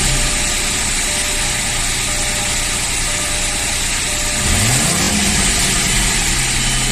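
Audi A4 V6 engine idling, then revved once about four and a half seconds in, its pitch rising and falling back to idle. The engine's oil pressure warning comes on at idle and goes out when revved, which the mechanic says could be the oil pump.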